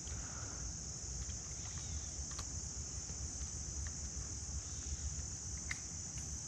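Steady, high-pitched insect chorus, with a low rumble underneath and a few faint ticks.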